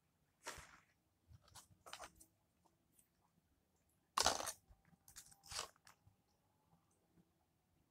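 Eating sounds: a plastic spoon and fork scraping food out of aluminium foil takeaway trays. Four or five short, crunchy, crinkly scrapes, the loudest about four seconds in as the spoon digs into a tray.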